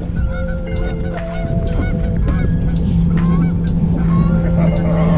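Outdoor sound on an open bass boat: wind buffeting the microphone, a steady low hum that gets stronger about three seconds in, and short pitched calls repeating over it.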